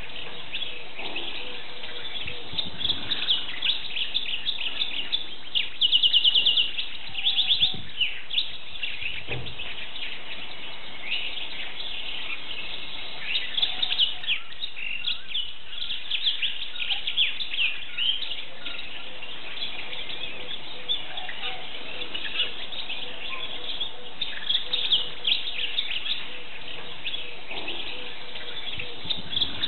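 Atlantic canary (wild-type Serinus canaria) singing a long, continuous song of quick twittering chirps and trills, with a loud rapid trill about six seconds in.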